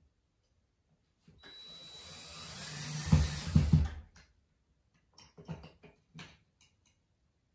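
A power drill drives a screw into a blind mounting bracket. It runs for about three seconds from just over a second in, getting louder as the screw bites, and ends with heavy thumps as the screw seats. A few light clicks and knocks of handling follow.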